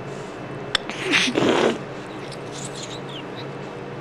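Moluccan cockatoo right at the microphone: a single sharp click, then a short, harsh, breathy rasp lasting under a second.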